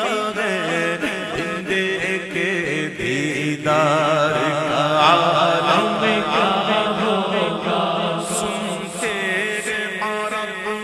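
Urdu devotional naat being sung: a male voice holding long, wavering, melismatic notes over a steady low sustained drone.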